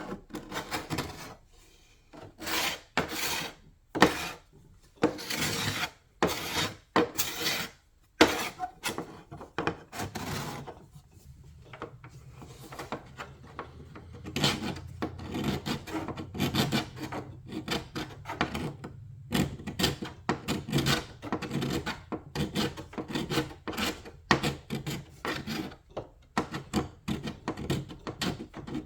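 A hand tool is worked in repeated rasping strokes over a painted wooden surface, stripping old paint and finish. The strokes come one at a time with pauses at first, then turn quicker and closer together about halfway through.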